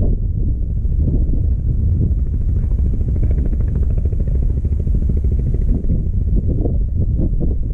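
Wind buffeting the microphone, a heavy, gusty low rumble. For a few seconds in the middle a faint mechanical buzz, like a small engine, runs underneath.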